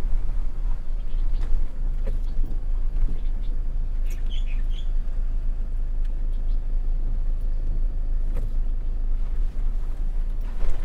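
Steady, wavering low rumble of outdoor background noise, with a few faint high chirps about four seconds in.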